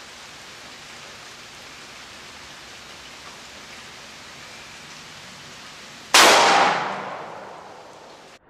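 A steady light hiss of rain, then about six seconds in a single .357 Magnum shot from a 3-inch-barrel Ruger GP100 revolver: one sharp crack whose echo dies away over about two seconds.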